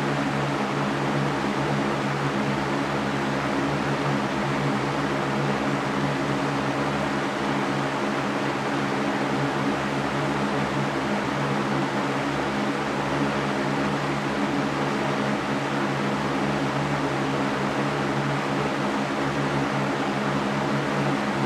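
Electric fan running steadily: an even whooshing of air with a low motor hum beneath it.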